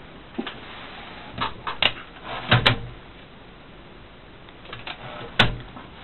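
Scattered knocks and clunks from a 1957 Olympia SG-1 desk typewriter being handled and shifted. The loudest is a pair of knocks about halfway, with another single knock near the end.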